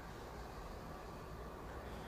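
Quiet room tone: a faint, steady hiss with a low hum underneath and no distinct events.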